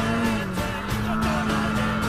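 Background music: a song with a singing voice over a regular drum beat.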